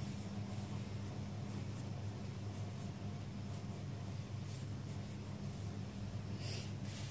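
Cut marker (chisel-tip marker) strokes on notebook paper as calligraphy letters are drawn: short faint swishes that grow more distinct near the end. A steady low hum runs underneath.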